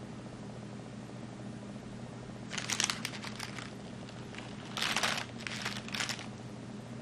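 Clear plastic wrapping crinkling in two short spells, the second louder, as a small camera lens resting on it is picked up and handled. A faint steady hum lies underneath.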